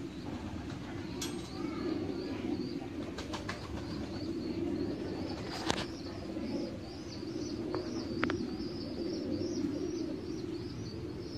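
Mukhi pigeons cooing in a low, continuous murmur, with a high repeated chirping over it from about a second in and a few sharp clicks.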